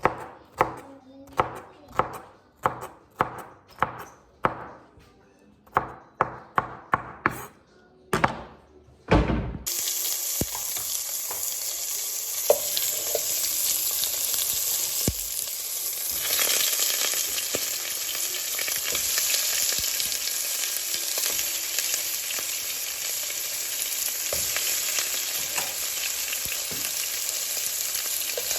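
A knife chopping on a cutting board, about two strokes a second, for the first nine seconds; then food goes into a hot pan and sizzles steadily, with a few knocks of stirring.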